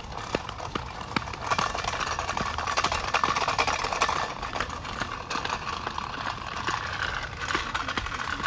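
Footsteps on a road, with rustling and knocks from the handheld phone: many irregular clicks over a steady noisy hiss.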